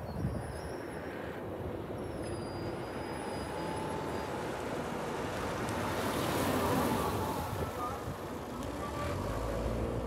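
Road vehicle noise, steady with a swell partway through, then the low engine rumble of a car coming up to the crossing near the end.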